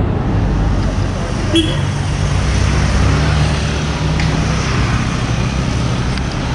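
City street traffic: the steady hum of motorbike, scooter and car engines close by, with a short horn beep about one and a half seconds in.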